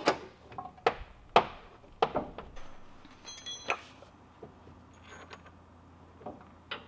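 Sharp metallic clinks and knocks of a bolt, washer and tools being handled as the bolt is fed up through a truck's upper control arm. One strike rings briefly, about three seconds in.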